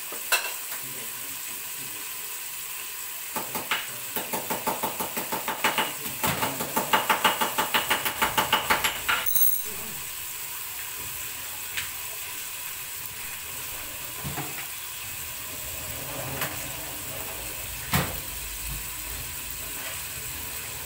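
Pork pieces sizzling in hot oil in a stainless steel pot, a steady frying hiss. A few seconds in, a run of quick clicks, about four a second and growing louder, lasts some six seconds; a few single knocks follow later.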